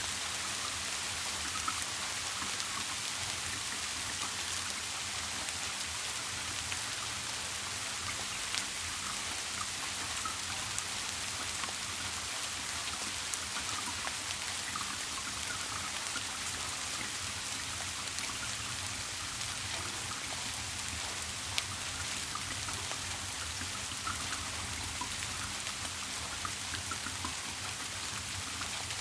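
Steady rain with scattered individual drops ticking through the hiss, over a faint steady low hum.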